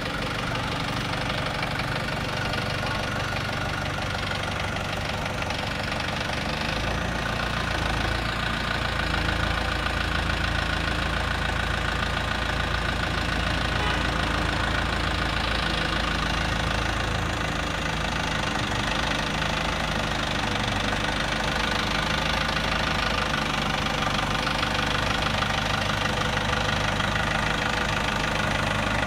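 Forklift engine running steadily, with a deep rumble that grows a little from about seven seconds in as the truck works.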